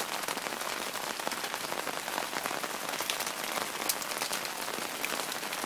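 Rainwater overflowing from a broken gutter and falling onto a plastic-wrapped wooden deck beam, with light rain all around: a steady, dense patter of drops with many sharp ticks.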